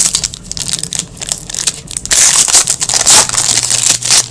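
Hockey card packs being torn open and their wrappers crumpled by hand, a dense crinkling in uneven bursts, the loudest and longest about two seconds in.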